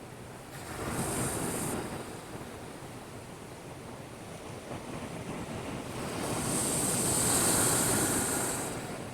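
Heavy storm surf from an approaching typhoon, the waves surging against a breakwater. A short surge comes about a second in, and a longer, louder one builds near the end.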